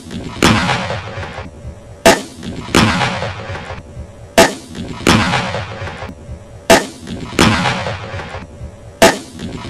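Tannerite charge under a 50-gallon steel drum detonating, heard four times over as repeated replays: each time a short, sharp crack, then about two-thirds of a second later a longer boom that dies away over a second or so.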